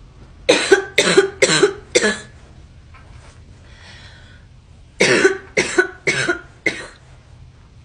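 A girl coughing in two fits of four sharp coughs each, the fits about three seconds apart.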